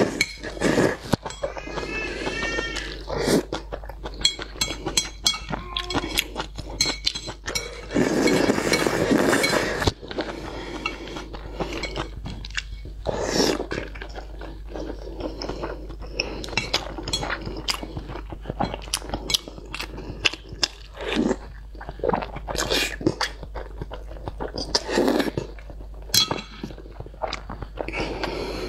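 Close-up eating sounds: noodles in sauce being slurped and chewed with wet mouth noises, and chopsticks clicking against a ceramic plate. A long, loud slurp comes about eight seconds in.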